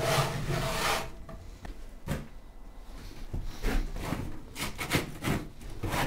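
Hand scraper scraping pigeon droppings off the wooden floor of a loft nest box. One long scrape at the start, then a string of shorter, separate strokes.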